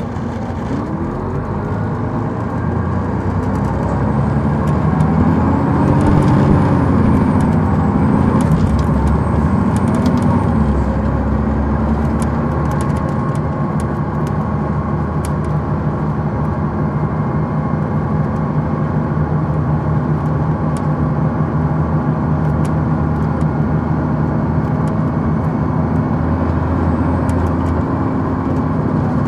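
Detroit Diesel Series 60 engine of a 2002 MCI D4000 coach heard from on board, pulling away with its pitch rising and dropping through upshifts of the Allison automatic transmission, then running at a steady cruise from about twelve seconds in. Light clicks and rattles come and go above it.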